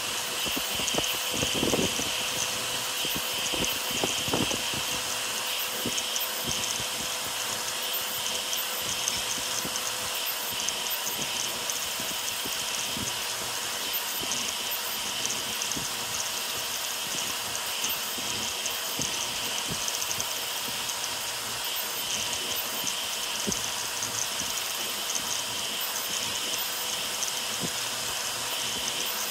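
Ender 5 Pro 3D printer rebuilt as a ZeroG Mercury 1.1, printing fast: a steady hiss of CPAP part-cooling air over the whine and buzz of its stepper motors, with small irregular ticks as the toolhead changes direction.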